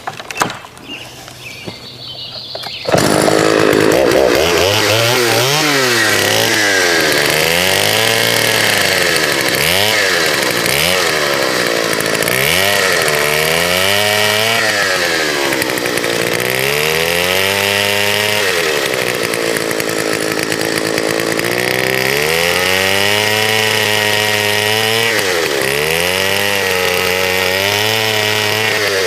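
Vintage Partner S55 55cc two-stroke chainsaw idling quietly, then about three seconds in throttled up and cutting firewood slices, its engine pitch repeatedly rising and dropping as it revs and bogs under load through the wood.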